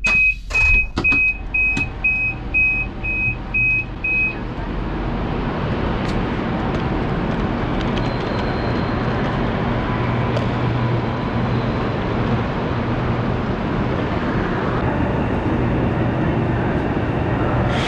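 Door warning beeper of a Chinese high-speed train, a short high beep about twice a second with a few clunks of the door mechanism, as the door opens; it stops about four seconds in. Then a steady rumble and low hum of a train standing at a station platform.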